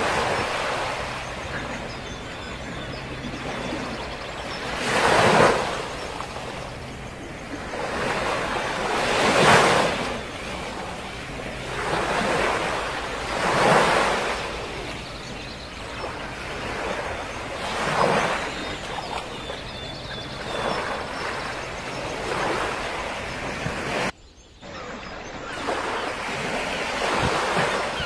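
Sea waves washing in, in slow surges about every four seconds. The sound cuts out briefly near the end.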